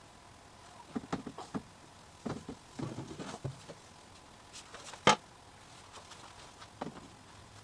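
Scattered light knocks and clicks, bunched together for the first few seconds, with one sharp, louder click about five seconds in.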